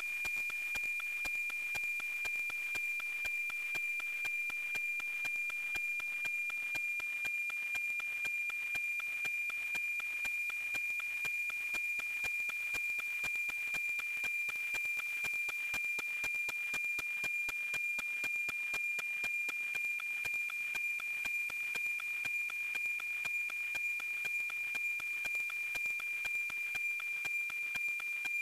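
NOAA-19 weather satellite's APT image signal received on an RTL-SDR radio: a steady high-pitched tone over hiss with a continuous rhythmic tick-tock, each tick marking one scan line of the picture. The signal is clear and strong.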